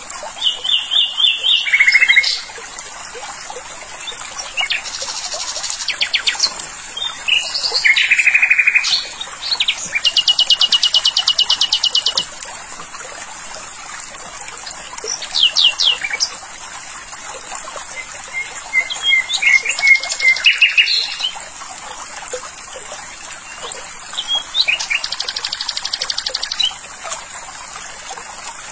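Songbirds singing in short phrases every few seconds: whistled notes and fast, high trills over a steady high hiss.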